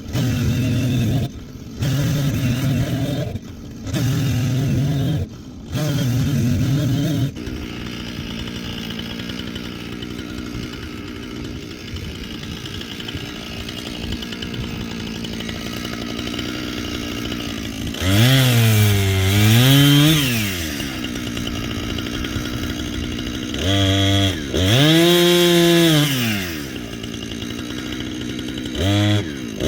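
Two-stroke chainsaw bucking ash logs. It gives four short even throttle bursts, then idles for about ten seconds, then revs hard three times, its pitch sagging and recovering as the chain bites into the wood.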